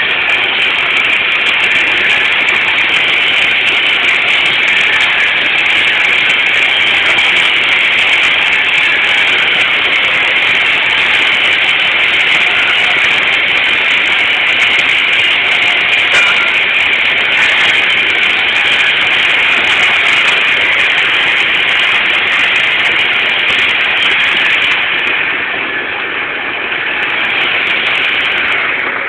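MIG welding arc on 304 stainless steel, a steady, loud hiss that dips slightly for a couple of seconds near the end.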